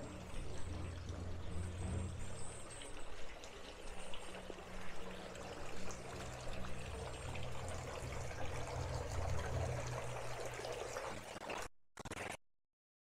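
Water splashing and trickling steadily into a stone fountain basin, with a low steady hum underneath. The sound cuts off abruptly about a second before the end.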